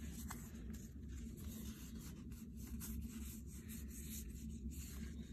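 Trading cards being handled: faint rubbing and light ticks of card stock sliding against card stock as a stack is shuffled through.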